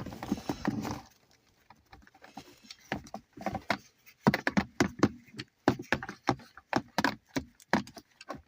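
Hands working loose plastic parts of a car's gear shifter: a brief rustle, then a quick run of sharp plastic clicks and knocks, several a second.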